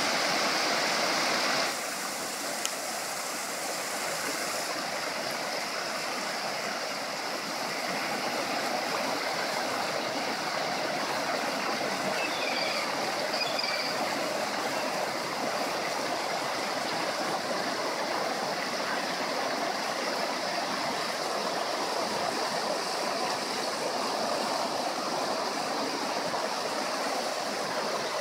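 Water pouring over a low concrete weir and churning in the river below: a steady rushing, a little louder for the first couple of seconds.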